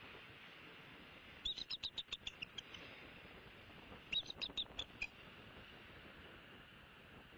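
Bald eagle giving its high chittering call: two quick runs of sharp piping notes, the first about a second and a half in, the second about four seconds in, over a faint steady hiss.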